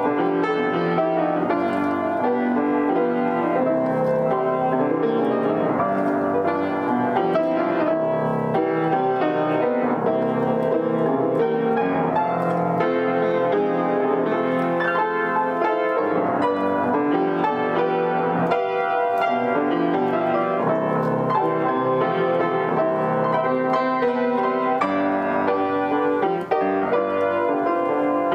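An upright piano played continuously, a flowing melody over full chords with many notes sounding at once.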